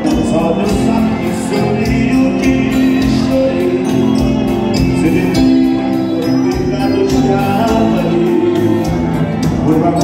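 A live dance band playing, with a singer over a steady beat.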